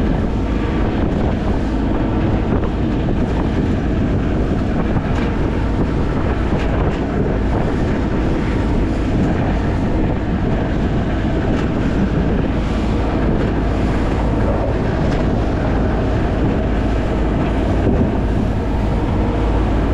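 Boat motor running steadily, under heavy wind buffeting the microphone.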